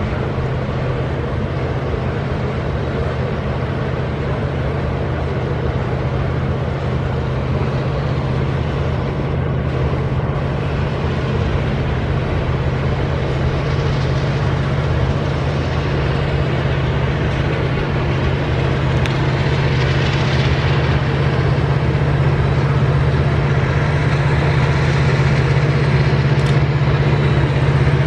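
A loaded iron-ore train's wagons rumble past on steel rails over the steady, deep hum of the EMD SD70LC diesel locomotive working as a remote helper pushing at the tail. The hum and the overall noise grow slowly louder as the locomotive approaches.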